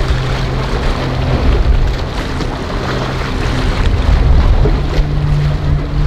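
Outboard engine of a center-console fishing boat running steadily at low speed through choppy water, with splashing wash and wind noise over it. The engine's pitch steps up a little near the end.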